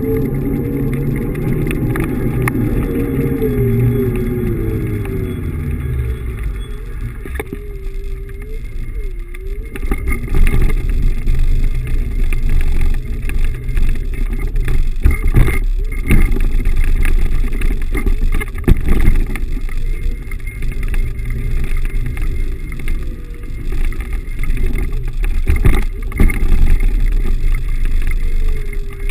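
Riding noise on a Xiaomi M365 Pro electric scooter in city traffic: a steady rumble of wind and road noise, with a hum that falls in pitch over the first several seconds and sharp knocks from bumps in the paving.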